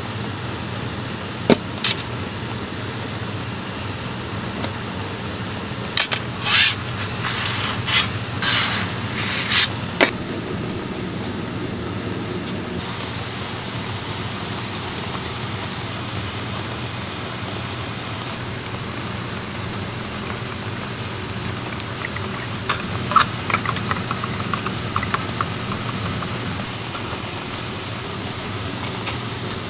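Steady hiss of a portable butane gas burner heating a copper ladle. A few short, sharp scraping bursts come about six to ten seconds in. Light clicking of a wooden chopstick against the copper ladle comes later, as sugar is stirred and melted for dalgona.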